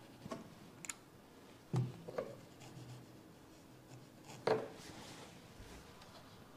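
Faint rustling and a few soft knocks, spread out with quiet between them; the clearest comes about four and a half seconds in.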